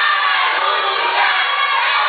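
Wrestling crowd shouting and cheering, many voices over one another without a break.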